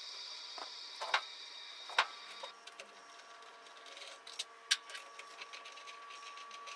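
Scattered light clicks and knocks of hand work on motorcycle handlebar parts, with a cluster of quicker clicks a little past the middle, over a faint steady high tone.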